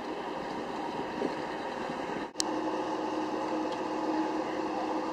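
Steady engine hum from a bus pulling away. About two and a half seconds in the sound drops out briefly with a sharp click, and a similar steady hum carries on.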